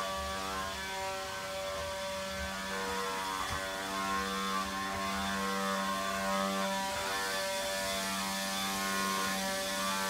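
Vacuum cleaner running with a steady motor hum over a hiss of rushing air.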